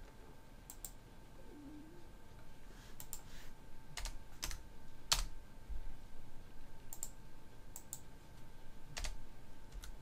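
Computer keyboard and mouse clicks: about a dozen short, irregularly spaced taps as the ladder-logic editor is worked.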